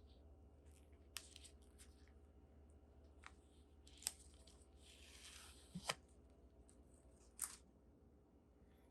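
Faint handling of a smartphone and its packaging: a few scattered light clicks and taps, with a short rustle about five seconds in.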